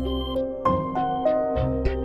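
Built-in Cubot X6 smartphone tone playing: an electronic melody of quick pitched notes over a bass line.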